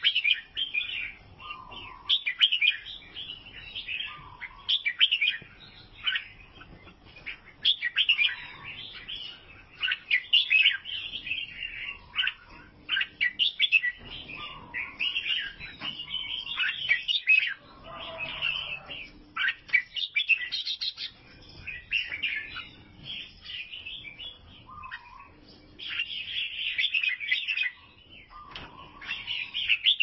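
Albino bulbul singing in a long run of short chirping phrases, one after another with brief gaps.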